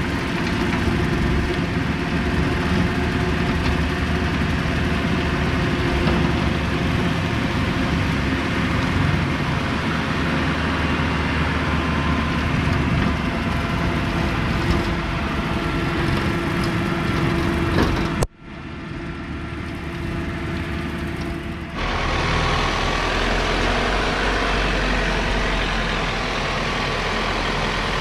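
John Deere 4066R compact tractor's three-cylinder diesel running steadily while its rear mower cuts grass on a slope. About two-thirds of the way through the sound breaks off sharply, and after a short quieter stretch the tractor's engine is heard idling close up, with a steady deep hum.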